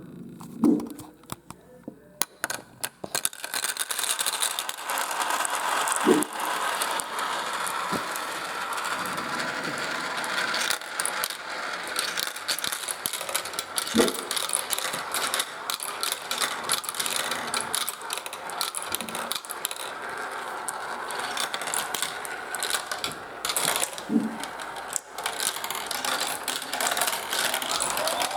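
Marbles rolling and clattering through a plastic marble run: a few separate clicks at first, then from about three seconds in a dense, continuous rattle of many marbles on the tracks.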